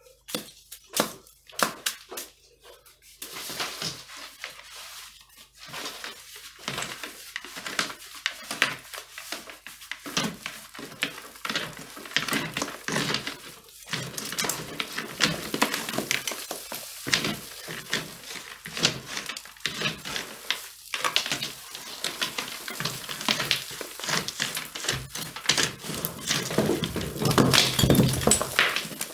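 Chimney-sweeping rod and brush being worked up and down inside a chimney flue from the fireplace: repeated scraping and knocking, with twigs and debris dropping into the hearth. Near the end the clatter grows louder as a large stone comes down the flue.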